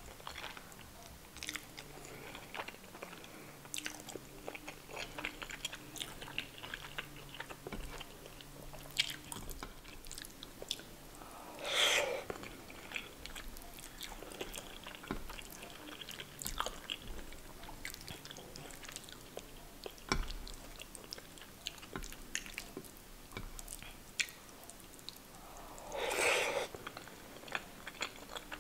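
Close-miked chewing of soft, curry-soaked food, with many small wet mouth clicks and lip smacks. A louder, longer mouth sound comes about twelve seconds in and again near the end.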